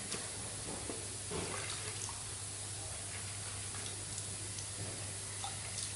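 Water scooped by hand from a jug and splashed onto a coated motorcycle exhaust pipe: scattered light splashes and drips over a steady hiss and low hum.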